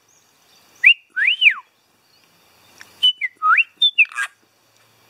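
Clear whistled notes: a short rising whistle and a longer whistle that rises and then falls, then a quick run of short stepped whistles, with a brief harsh chirp about four seconds in.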